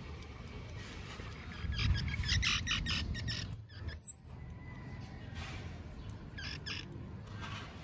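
Animal calls: quick series of high-pitched chirps in several bursts, with two loud, shrill squeaks about halfway through.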